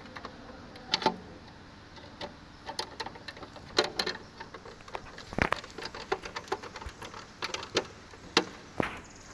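Irregular sharp clicks and light knocks of a metal screwdriver tightening a screw on a hand push seeder's plastic seed box, metal tapping and scraping on hard plastic.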